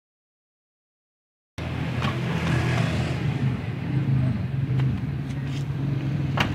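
Silence for about a second and a half, then a Mitsubishi Colt T120SS pickup's engine running steadily at idle, with a few light clicks over it.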